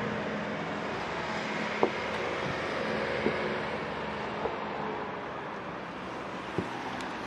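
Steady outdoor background noise with a low hum, and a few faint knocks.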